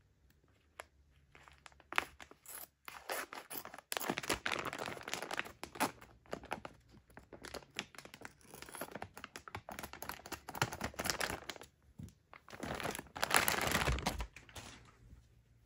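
Clear plastic packaging bag being cut with scissors and pulled off a plush toy: a few sharp snips and clicks in the first few seconds, then long spells of loud plastic crinkling and rustling, loudest near the end.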